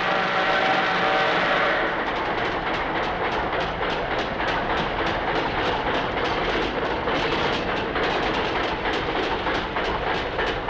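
A train's whistle sounds a held chord for about the first two seconds. Then a train runs along the track, its wheels clacking over the rail joints in a quick, steady rhythm.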